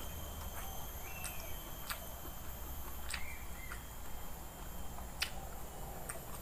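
A person chewing a mouthful of rice and vegetables, with a few sharp, short mouth clicks and smacks scattered through it. The loudest comes about five seconds in. A faint steady hum and high hiss lie behind.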